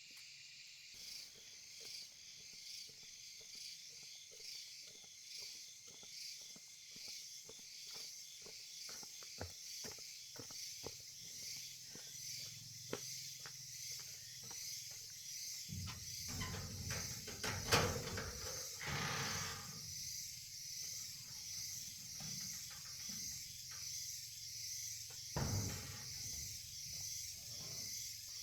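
Night insects chirring steadily in a high, pulsing drone, with scattered light clicks and a few louder knocks, the loudest about two-thirds of the way through.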